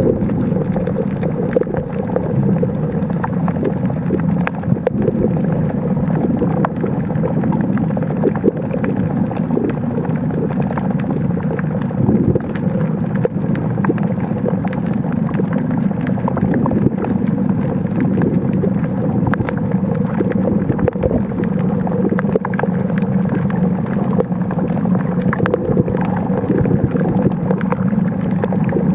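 Underwater sound picked up by a submerged camera in a fast current: a steady low rumble with many sharp clicks scattered throughout.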